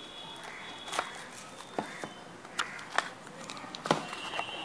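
Packaging being handled: a handful of short, sharp crinkles and taps as a pocket Wi-Fi router in a plastic wrapper is lifted out of its moulded box tray, the loudest about a second in and near the end.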